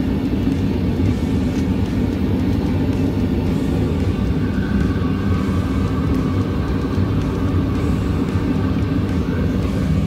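Gas burner of a homemade copper-melting furnace running with a steady, deep roar.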